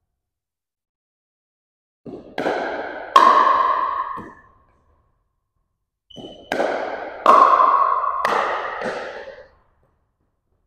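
Pickleball paddles hitting the plastic ball in two short exchanges, each a few sharp pops that ring in the gym: one a couple of seconds in, the other after about six seconds.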